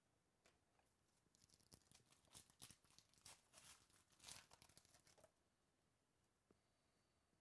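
Faint crinkling and tearing of a trading-card pack's wrapper being torn open and pulled apart: a quick run of rustles starting about a second and a half in and stopping a little after five seconds.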